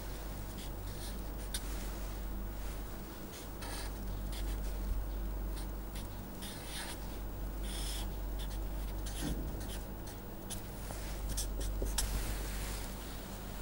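Felt-tip marker drawing on paper: a string of short, scratchy strokes as lines, arrows and letters are drawn, with a longer run of strokes near the end. A steady low electrical hum sits underneath.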